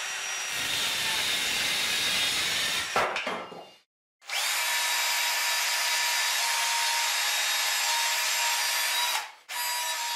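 Electric jigsaw cutting through a thin wooden strip, stopping just under four seconds in. Then a cordless drill boring a hole in a wooden batten with a steady whine; it stops briefly near the end and starts again.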